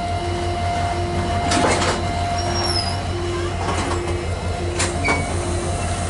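Diesel passenger train rolling slowly along a station platform, heard from the carriage doorway: a steady low engine hum with a regular beep about every three quarters of a second. A few clanks from the carriages come through, along with a couple of short bird chirps.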